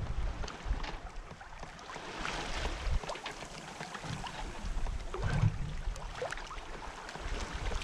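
Water rushing and splashing along the hull of a Westsail 32 sailboat under sail, with wind buffeting the microphone in gusts, strongest at the start and about five seconds in.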